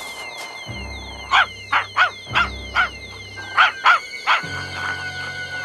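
Cartoon dog giving a string of short barks, several in quick succession, over orchestral underscore with low held notes.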